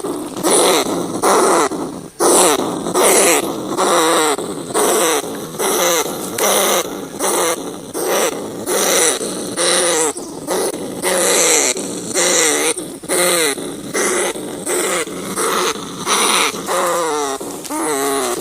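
Rat calls: harsh, wavering squeals repeated a little more than once a second, each falling in pitch.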